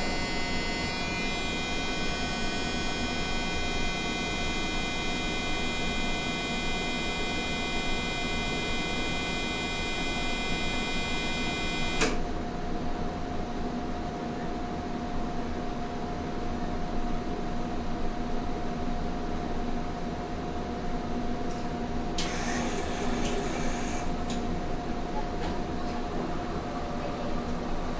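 Radiation therapy machine (medical linear accelerator) humming steadily, with a whine of several high tones that cuts off suddenly about twelve seconds in. A brief hiss comes about twenty-two seconds in.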